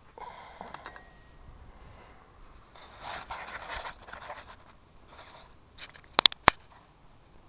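Handling noise: scraping and rustling against the microphone, then three sharp, loud clicks about six seconds in.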